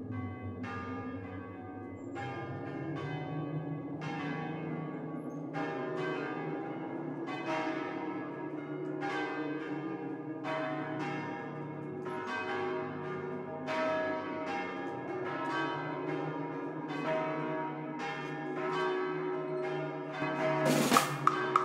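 Bells ringing one after another in a slow, irregular peal, each stroke ringing out, over a low steady drone. Just before the end a loud sweeping crash cuts in.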